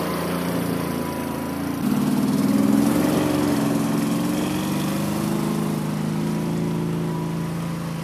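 Small engine of a homemade karakat all-terrain vehicle driving through snow. About two seconds in it revs up and gets louder, then runs steadily and fades as the vehicle moves away near the end.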